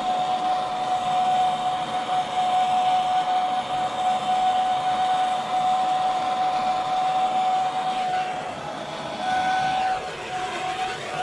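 Gas torch burning steadily, a hiss with a steady whistle-like tone, as it heats a seized control-arm bolt to free it. The sound dips and the tone wavers briefly about eight seconds in and again about ten seconds in.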